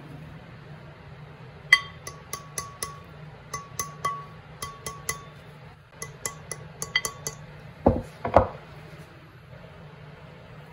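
Light hammer taps on a steel snowmobile jackshaft, working the new bearing deflector along it. The taps come in runs of about three a second, each with a short metallic ring, followed by two heavier thumps near the end.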